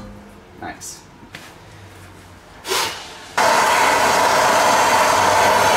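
A few light knocks and a brief whoosh, then about three and a half seconds in a handheld gas torch lights and burns with a loud, steady hiss, heating the steering knuckle around a seized TTB ball joint.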